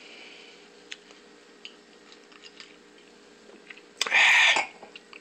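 Faint crackling and clicks, then a sudden loud splashy hiss lasting about half a second, about four seconds in: Moët champagne being poured into a glass and foaming.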